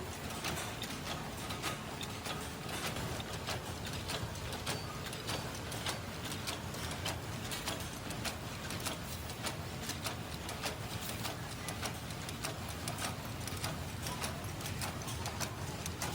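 Steel-wire mesh-making machine running: a steady low hum under rapid, irregular metallic clicks and clatter.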